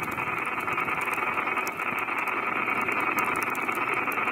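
Steady radio static hiss with light crackles, the open-channel noise of a railfan's scanner radio.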